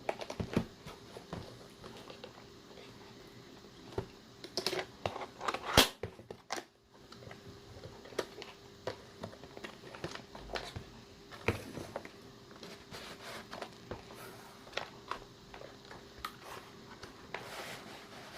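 A boxed power strip being unboxed by hand: the box opened and the packaging handled, giving scattered taps, scrapes and rustles, with one louder knock about six seconds in. A faint steady hum runs underneath.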